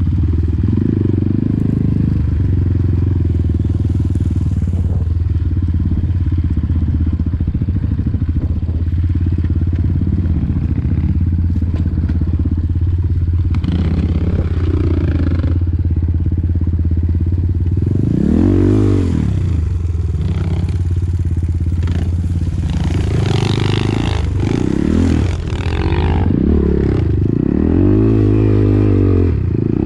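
Enduro dirt bike engine running while riding, steady at first, then revving up and down again and again from a little past halfway as the throttle is worked.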